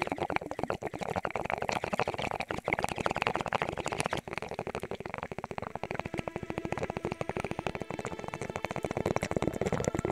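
Dense crackling and popping: a rapid, irregular stream of small clicks over a steady hiss, used as a sampled noise texture at the start of a vaporwave track.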